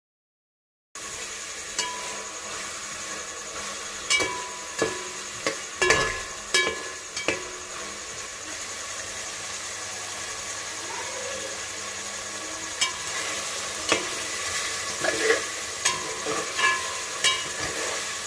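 Potato chunks and green chillies sizzling in oil and spice masala in an aluminium pot, while a slotted metal spatula stirs them and clinks and scrapes against the pot. The sizzle is steady. The sharp clinks come in a run a few seconds in and again near the end. The sound starts after about a second of silence.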